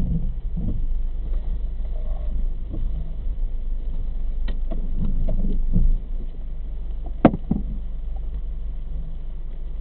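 A car engine idling steadily, heard from inside the cabin as a low hum, with scattered light knocks and clicks. A sharp click about two-thirds of the way through is the loudest sound.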